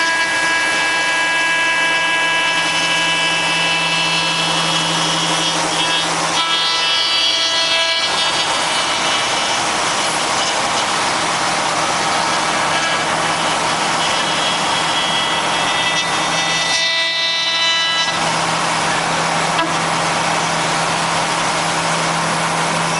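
Spindle of a 5-axis CNC router running with a steady whine while its bit cuts wood, the cutting noise loud and continuous. The sound thins briefly twice, about six seconds in and again near seventeen seconds.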